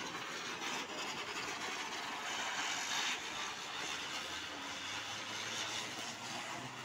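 A ground spinner firework (chakri) whirling on the ground and throwing sparks, giving a steady fizzing hiss that cuts off near the end.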